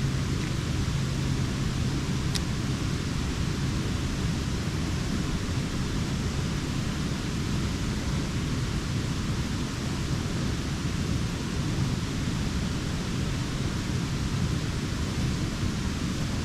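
Steady rushing of flowing creek water, an even hiss with a faint low rumble underneath.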